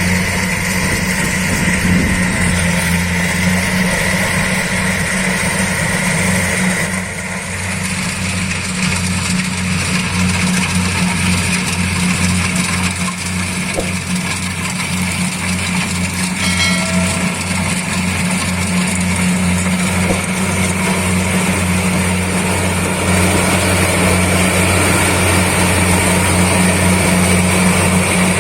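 Rice combine harvester running steadily: a pulsing engine drone with a broad mechanical noise over it, dipping slightly about seven seconds in.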